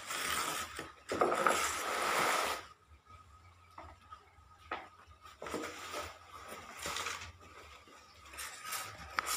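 Plastic wrapping and cardboard rustling as flat white panels are pulled from a box and laid on a tiled floor, loudest in the first two and a half seconds, then quieter rustles with a few knocks of the panels.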